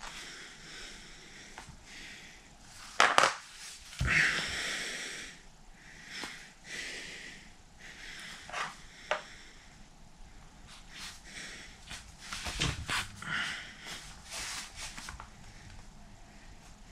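A man breathing hard through his nose while holding a forearm plank on a wooden floor, with repeated sniffs and puffed-out breaths. Two sharp knocks about three and four seconds in are the loudest sounds, with a few lighter clicks later.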